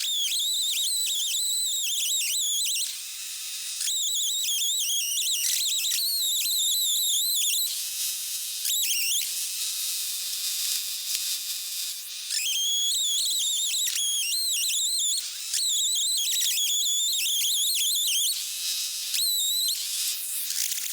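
Chainsaw mill ripping along an oak log: a steady high-pitched hiss with a whine that wavers in pitch. It comes in several stretches that break off and restart abruptly.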